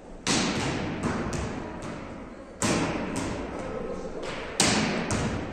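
Volleyballs being struck in passing drills: a series of sharp thuds, three loud ones about two seconds apart with softer ones between, each ringing on in the echo of the large hall.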